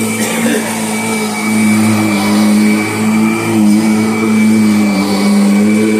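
2010 Kirby Sentria upright vacuum running on a newly fitted belt: a loud, steady motor hum with a faint high whine, dipping slightly in pitch now and then.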